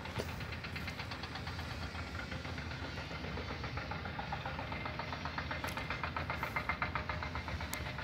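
A machine running steadily, with a fast, even rattle over a low rumble.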